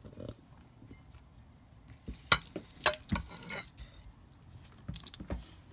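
Glass bottles and jars being handled on a table, knocking and clinking against each other. A cluster of about four clinks comes around the middle, and two more near the end.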